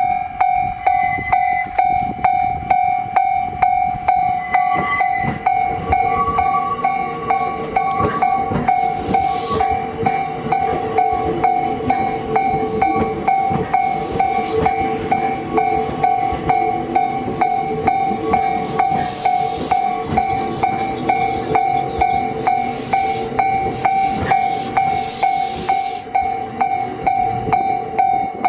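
Japanese level-crossing alarm ringing with a steady, rapidly repeating electronic bell tone. Under it, an E235 series electric train runs over the crossing, its wheels clicking over rail joints, with short bursts of hiss now and then.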